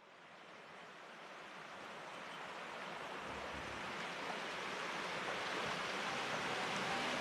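Rushing water of the warm Kamuiwakka River and its hot-spring waterfall, a steady hiss that fades in at the start and grows steadily louder.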